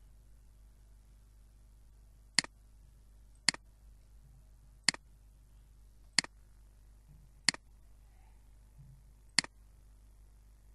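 Six sharp computer mouse clicks, spaced irregularly one to two seconds apart.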